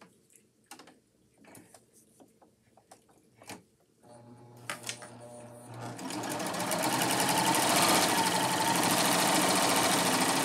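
Baby Lock Triumph 8-thread serger starting up about four seconds in after a few light handling clicks, quickly speeding up, then running steadily at full speed as it stitches a wave stitch along folded fabric.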